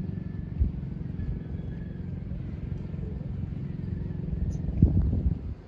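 A motor engine running steadily with a low hum, with a knock about half a second in and a cluster of louder knocks near the end; the sound drops away sharply just before the end.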